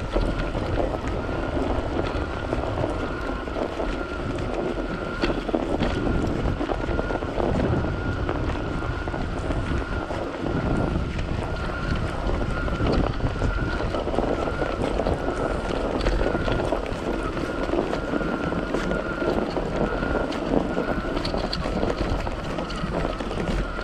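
Strong wind buffeting the microphone on a ride through a blizzard: a steady rushing noise with heavy low rumble, and a thin steady whine running underneath.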